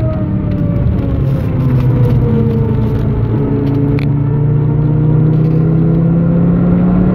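Audi TT RS's tuned turbocharged five-cylinder engine heard from inside the car, its note falling as the car slows off the throttle, with a jump up in pitch a little over three seconds in as it shifts down a gear. A single short click about four seconds in.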